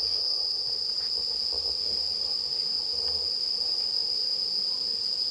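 Night insects trilling in one continuous, steady high-pitched chorus.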